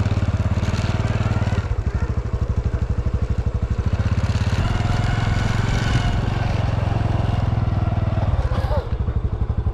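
Honda Super Cub's single-cylinder four-stroke engine running at a steady pace, its exhaust pulsing evenly.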